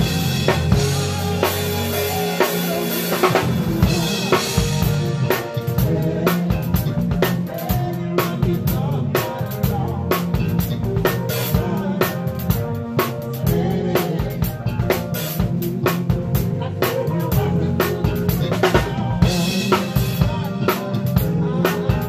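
Live band playing a funk groove, heard up close from beside the drum kit: kick, snare and cymbal hits are loudest, with electric bass and other instruments underneath.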